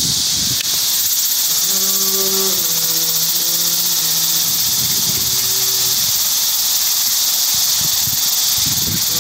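An outdoor human-figure sculpture humming a slow, wordless tune in a low voice: long held notes that step down, from about two seconds in until about six seconds, over a steady high hiss. The sound is an odd, eerie humming.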